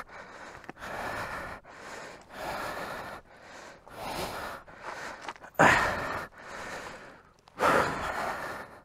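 A man breathing hard in heavy gasps, roughly one breath a second, from the strain of trying to lift a fallen, heavily loaded motorcycle. Two breaths, about halfway and near the end, are louder.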